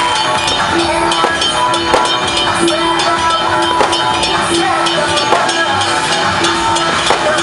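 Loud music with drums and dense percussion strikes, over a held mid-pitched note that swells and drops again and again.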